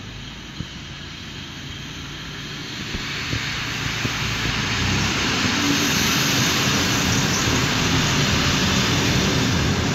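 ALn 663 diesel railcar arriving and passing close by, its diesel engine and wheels on the rails growing louder over the first five seconds and then staying loud as it goes past.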